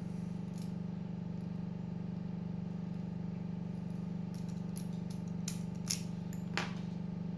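Faint scattered clicks of a single lock pick raking the pins of an Abus 24/70 disc padlock, mostly in the second half, over a steady low hum.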